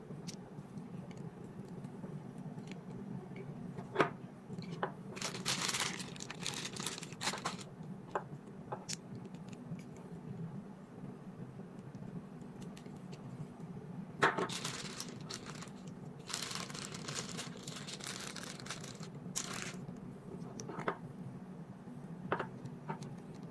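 Packaging being handled: plastic wrapping rustling and crinkling in two longer stretches, with a few sharp knocks and taps, over a steady low hum.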